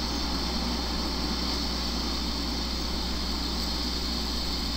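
Steady background noise: a constant hiss with a low, unchanging hum underneath.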